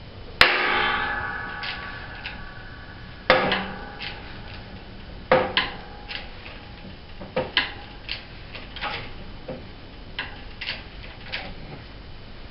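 Metal clanks and clicks from a hydraulic shop press working on a two-stroke snowmobile crankshaft: a loud ringing clank about half a second in, two more at about three and five seconds, then a run of lighter ticks and clanks.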